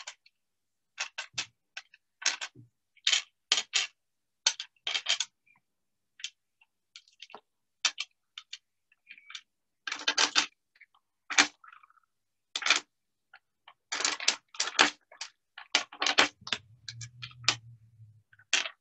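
Small pebbles being set down one at a time on a glass tabletop: a long, irregular run of sharp clicks and clacks, some in quick little clusters.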